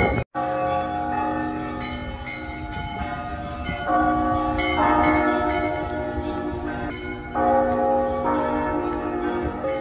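Orthodox church bells ringing, many bells sounding together in a dense continuous peal. The mix of tones changes abruptly about four and about seven and a half seconds in.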